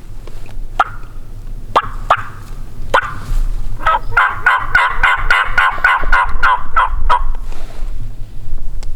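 Wild turkey gobbler gobbling: a fast rattling gobble lasting about three seconds, starting a few seconds in. It is preceded by three short, sharp calls about a second apart.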